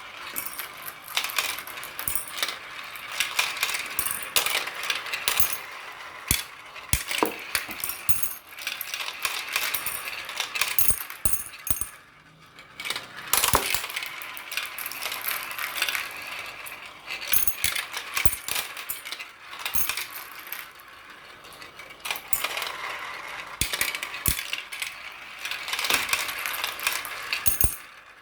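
Many marbles rolling and clattering down a marble run track: a dense stream of clicks and rattles, with a brief lull about twelve seconds in and a quieter stretch around twenty seconds.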